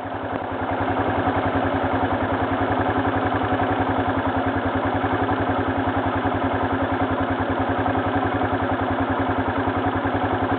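ATV engine idling with a steady, even putter.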